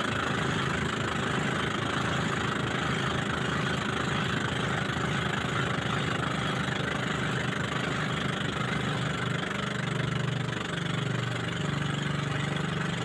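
Motorboat engine running steadily with a rapid low pulse as the boat travels over open water. From about nine seconds in, its low hum grows stronger and uneven.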